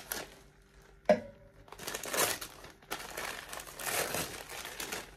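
Crinkly packaging rustling and crumpling as newly bought champagne glasses are handled, with a single sharp knock and a short ring about a second in.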